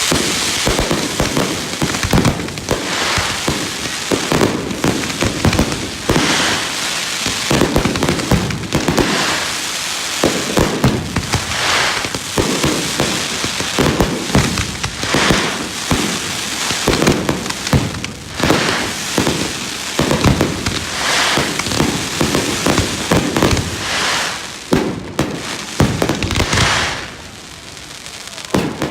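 Fireworks going off in a dense, continuous barrage of bangs and crackles, with only a short lull near the end.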